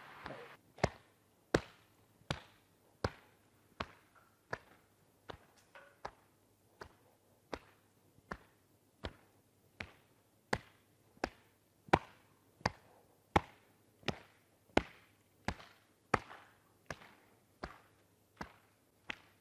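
Open palms slapping the body in a steady rhythm, about one slap every three-quarters of a second, some louder than others. This is the qigong self-patting move that taps the lower back at the mệnh môn point and pats along the shoulders and sides.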